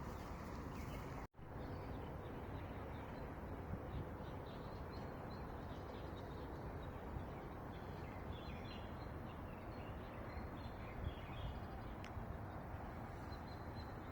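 Small birds chirping in short, scattered calls over a steady low outdoor background hum, with a brief cut to silence about a second in.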